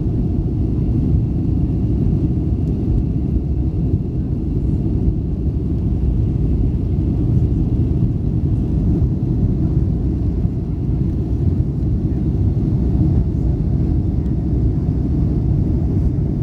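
Jet airliner cabin in the climb after takeoff: a steady low rumble of the engines and rushing air, with a faint steady high tone above it.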